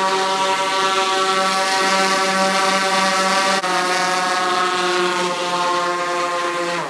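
Powervision PowerEgg quadcopter's motors and 10.5-inch propellers running with a steady, high hum while the drone sits landed on the carpet. It dips briefly and drops a little in pitch about halfway through. At the very end the motors finally cut and spin down, the pitch falling away, after the drone has been slow to shut them off on landing.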